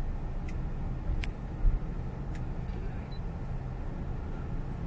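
Steady low rumble of a Honda car moving slowly, heard from inside the cabin. There are a few light clicks and a dull thump about a second and a half in.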